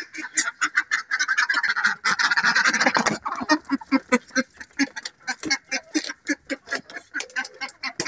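Ducks feeding noisily at a tub of wet chopped vegetables: a quick, unbroken patter of short clicks from their bills in the wet food, over a run of short quacks that is densest between one and three seconds in.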